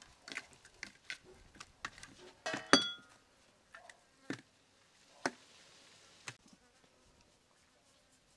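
Hands handling raw whole quail on a stainless steel tray: irregular wet slaps and knocks of the carcasses against the metal. There is one louder clink of the tray, ringing briefly, about three seconds in.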